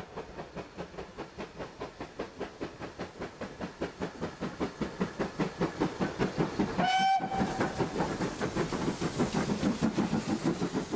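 GWR 5101-class Large Prairie tank engine No. 4160 working a passenger train, its exhaust beating in a steady rhythm that grows louder as it comes up and passes. A short blast on the steam whistle about seven seconds in.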